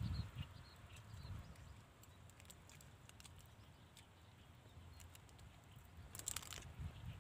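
Quiet clicks and scrapes of a plastic spoon scooping rice in a clear plastic takeaway food box, with a louder cluster of clicks about six seconds in.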